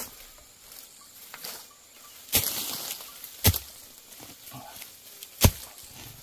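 Three sharp chops, a blade cutting through a bamboo shoot at the ground, the first followed by a short rustle of leaves and undergrowth.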